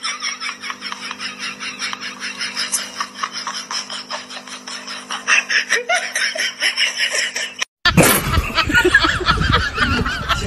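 A person laughing in a rapid, high-pitched run of giggles. It cuts off abruptly about eight seconds in, and a different, fuller sound with more low end takes over.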